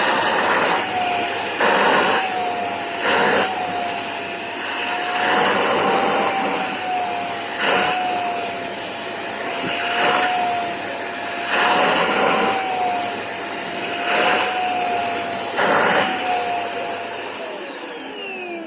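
Vacuum cleaner running with a steady, slightly wavering motor whine, with louder rushes of suction every couple of seconds as the nozzle is worked over a pet's coat. It is switched off near the end, and the whine falls away as the motor spins down.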